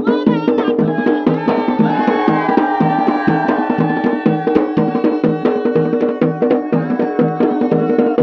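Garhwali dhol and damau drums playing a steady, driving dance rhythm, deep strokes about twice a second with quicker strokes between, under a held melody line.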